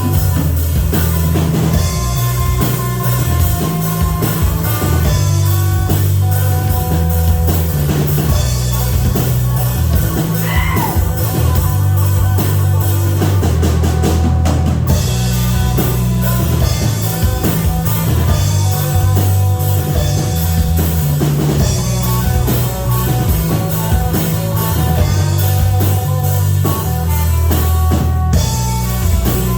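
Rock band playing live, drums and guitar over a steady, heavy bass line.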